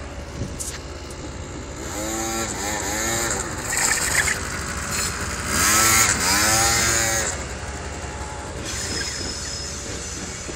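MBK Booster (Yamaha BW's) scooter engine revving up and falling back twice, about two seconds in and again around six seconds in. The second, louder rev comes as the scooter is lifted into a wheelie.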